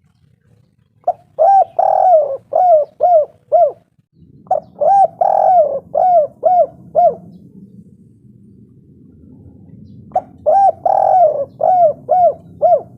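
Spotted dove (tekukur) cooing three times. Each phrase has a short opening note, a longer drawn-out coo, then a quick run of four or five shorter coos.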